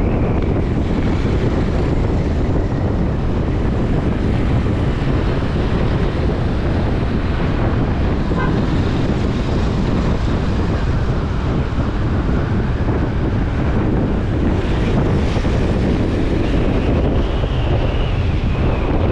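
Wind buffeting the microphone of a moving bike ride through city streets: a steady, dense low rumble that never lets up.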